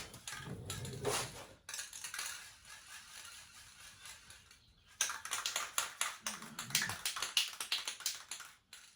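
Aerosol can of high-heat spray paint being shaken, its mixing ball rattling in fast clicks, loudest over the second half, with a fainter hiss of spraying in the middle.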